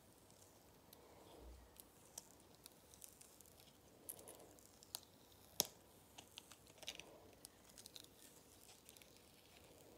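Silicone mould being flexed and peeled off a cured epoxy resin coaster: faint, scattered crackles and clicks as the silicone releases from the resin, the sharpest about five and a half seconds in.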